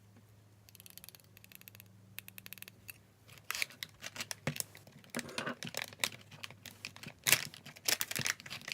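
A craft kit's packaging being opened and handled: fine rapid crackling at first, then louder irregular crinkling, rustling and clicks from about three seconds in.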